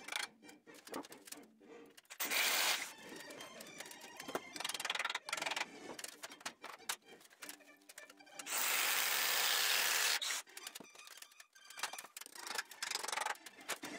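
Hammer knocking nails into wooden framing battens, a scattered run of sharp knocks. Twice a louder rushing noise breaks in, briefly about two seconds in and for nearly two seconds just past the middle.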